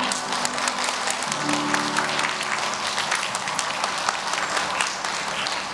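Audience applauding as the dance music comes to an end.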